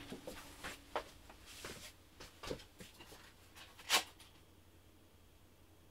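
Scattered light knocks and clicks of someone moving about a workshop and handling things. The loudest knock comes about four seconds in; after that there is only faint room tone.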